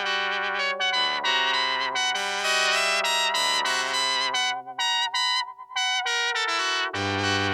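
Elektronika EM-25 electronic keyboard playing sustained chords with a brass-like tone. The sound thins out about five seconds in, then a new chord with a strong bass comes in near the end.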